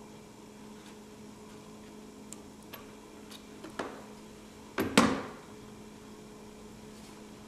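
A few light clicks and taps, then a sharp double knock about five seconds in, as the iMac's front bezel is set down and pressed into place on the frame. A steady low hum runs underneath.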